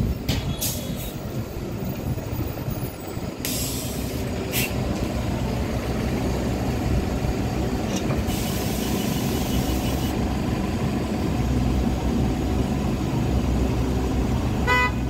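City transit bus engine running at close range, a steady low rumble, broken by several sharp hisses of compressed air, the longest lasting about two seconds. A short beep sounds near the end.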